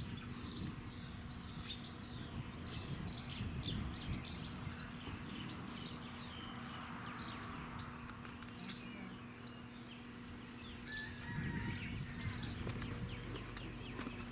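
Small birds chirping repeatedly, short high downward chirps one or two a second that thin out in the last few seconds, over a steady low hum and a low wind rumble.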